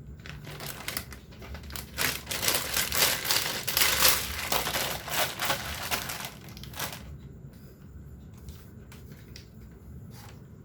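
Plastic packaging crinkling and crackling as it is handled and folded, busiest in the middle, then a few faint clicks.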